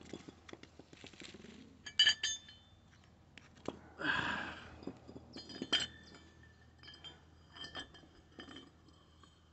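A steel shaft with a pulley fitted on it clinking and clanking against brick and concrete as it is handled, several sharp knocks that leave a brief metallic ring, with a short scrape about four seconds in.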